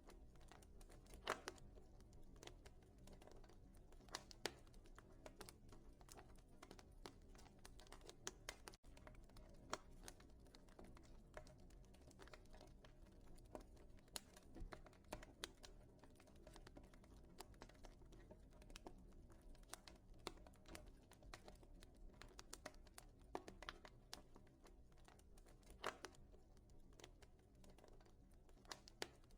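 Wood fire crackling in a fireplace: quiet, irregular snaps and pops over a faint low hiss, with a few louder pops scattered through.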